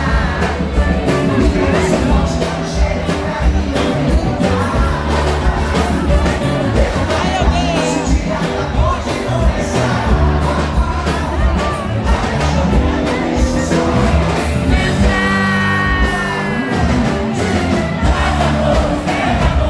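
Amplified live band music with singing over a steady bass and drum beat.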